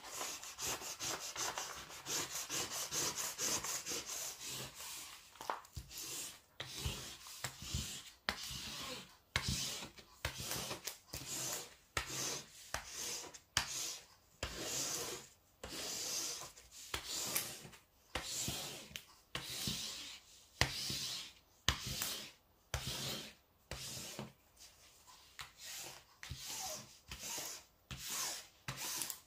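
Hands smoothing the protective release paper flat over the adhesive diamond-painting canvas: a continuous rustle at first, then separate rubbing strokes about once a second.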